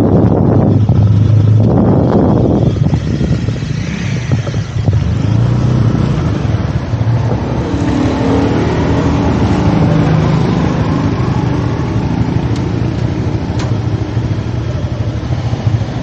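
Motorbike engine running steadily while riding, with wind rushing over the microphone, strongest in the first few seconds.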